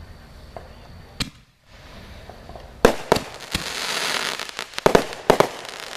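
Fireworks going off: a loud sharp bang about three seconds in, a second bang, then crackling and a quick run of sharp pops near the end.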